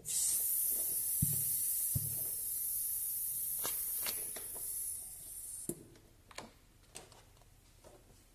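Air hissing out of a rubber basketball as it is deflated, a steady high hiss lasting about five and a half seconds that stops suddenly. A few light clicks and taps follow.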